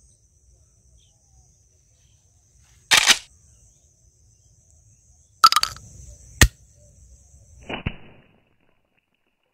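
Homemade bamboo slingshot pistol being shot: a sharp snap about three seconds in, another snap past halfway followed by a short click. Near the end comes a water balloon bursting and splashing.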